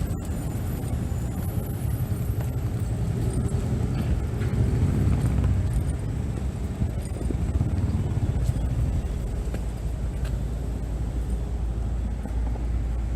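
Steady low rumble of a vehicle running past, with a few faint scattered clicks.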